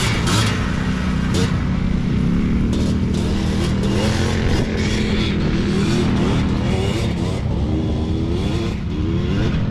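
Several small ATV engines running as quads ride across dirt, revving up and down with repeated rising sweeps in pitch, most often near the end.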